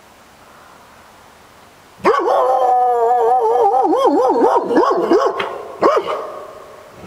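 A dog howling: about two seconds in she starts a long, loud howl whose pitch wavers up and down, then gives one short call near six seconds and tails off. Before the howl there is only a faint steady outdoor hiss.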